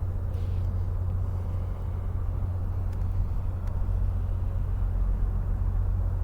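A vehicle engine running steadily: an even, low rumble with no change in pitch.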